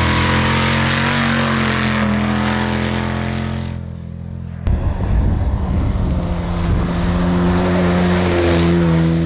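Off-road race vehicle engines running hard, a steady engine note with noise from the vehicle in motion. The sound dulls and drops about four seconds in, then a second loud engine sound starts suddenly and its pitch steps up near the end.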